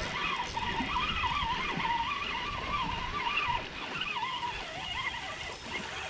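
Fishing reel cranked under the load of a hooked brown bullhead, its gears whining with a pitch that wavers up and down in time with the cranking. The whine drops in level a little past halfway.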